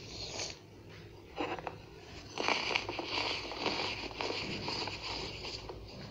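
Compacted baking soda crunching and crumbling as fingers squeeze and crush it: a gritty crackle of small crunches. It is fainter for the first two seconds, then steadier crunching from about two and a half seconds in.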